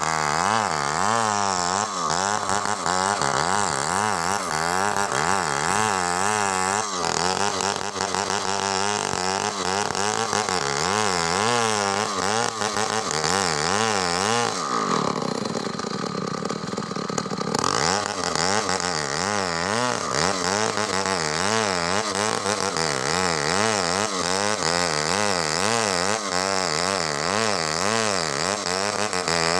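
Stihl chainsaw running hard while cutting a coconut palm trunk, its engine note wavering up and down under load. Near the middle the revs drop for about three seconds, then climb again.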